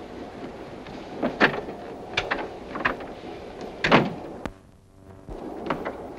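Knocks and clicks of a railway compartment door being opened and shut, with the loudest bang about four seconds in.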